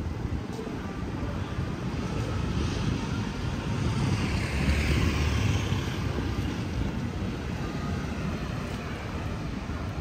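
An engine passing by, growing louder to a peak about halfway through and then fading, over a steady background of outdoor noise.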